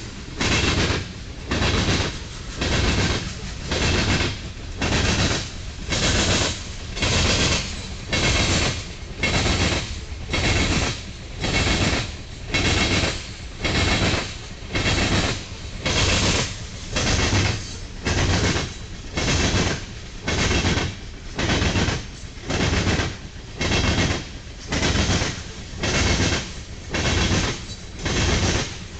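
Union Pacific coal train cars rolling past. The wheels clatter over the rails in a steady rhythm of about one loud clatter a second, over a continuous rolling rumble.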